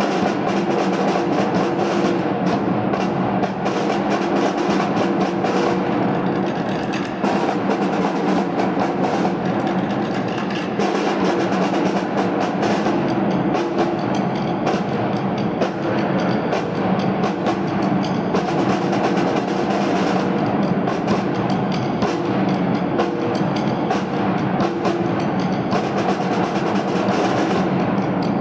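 Brass and reed band playing, with wind instruments sounding sustained notes over snare and bass drums and a sousaphone.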